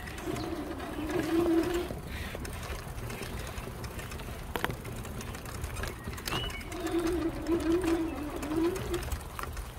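A pigeon cooing in two phrases, one just after the start and another from about seven seconds in, with a small bird's short chirp just before the second phrase. A low rumble runs underneath.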